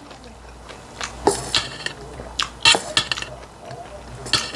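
Metal spoon scraping and clinking in a stainless steel bowl of bibimbap, in several short strokes with pauses between, along with chewing.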